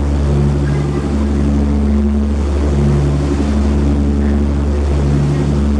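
Sightseeing boat's engine droning steadily under way, its low hum swelling and fading in a slow beat, over the rushing of the churning propeller wake.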